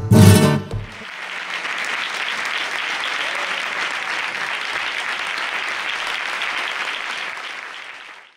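A flamenco guitar's final strummed chord rings out, then an audience applauds steadily, fading away near the end.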